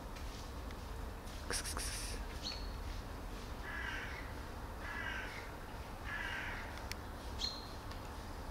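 A bird gives three harsh calls about a second apart, with a short high chirp shortly before them and another after.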